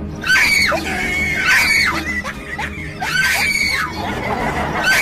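Four long, high-pitched screams, each sliding down in pitch at the end, over background music.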